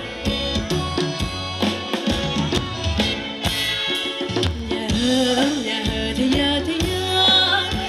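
Thai ramwong dance music from a band: a drum kit keeps a steady beat on bass drum and snare, with a melody line over it.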